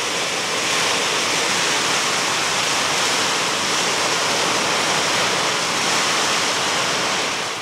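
Heavy rain pouring down hard in a cloudburst, a dense, steady hiss.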